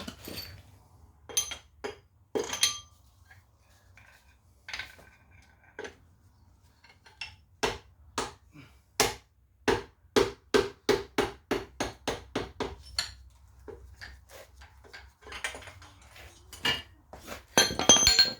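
Hand tools working on a stripped-down RB20DET engine. There are scattered metal clinks, then a run of sharp, evenly spaced taps or clicks, about three a second for around five seconds. Near the end comes a louder clatter of metal parts.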